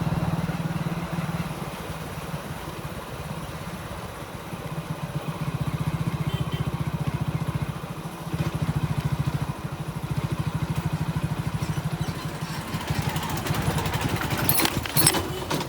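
A small engine running with a fast, even pulsing beat, growing louder and softer several times. A few sharp clicks near the end.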